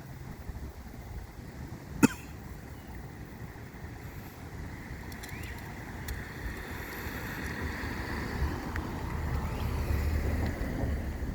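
Storm wind buffeting the microphone as a low rumble that gusts louder toward the end, with one sharp click about two seconds in.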